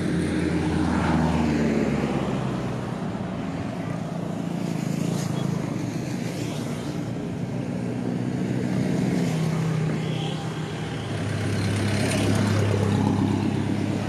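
Road traffic: car engines and tyres passing close by on a city bridge, with a low engine hum that swells and fades several times, loudest near the start and again near the end.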